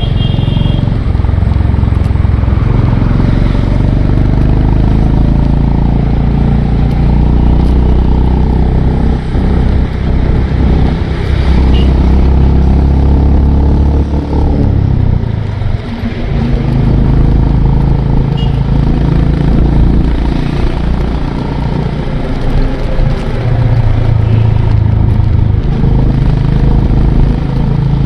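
Honda CB350 RS's air-cooled single-cylinder engine running under way, its note rising and falling with throttle and gear changes, with a brief drop in level about halfway through.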